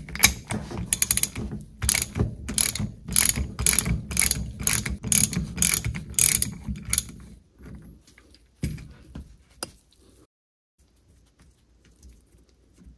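Hand socket ratchet clicking in quick runs as it backs the 15/16 preload nut off the MerCruiser U-joint shaft assembly. The clicking stops about seven seconds in, followed by a few light knocks of the assembly being handled.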